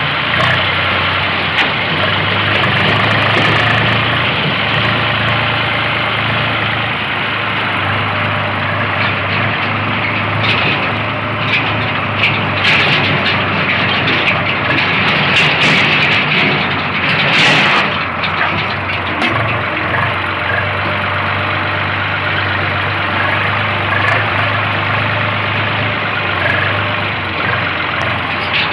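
Farm tractor's diesel engine running steadily, heard close up from the driver's seat beside the exhaust stack. Clicks and rattles come through in the middle.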